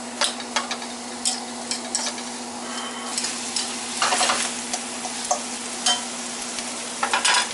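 Diced onions sizzling in melting butter in a stainless steel skillet while a spatula stirs them, scraping and tapping the pan in irregular clicks. The onions are being sautéed down to soften. The stirring gets busier about four seconds in and again near the end.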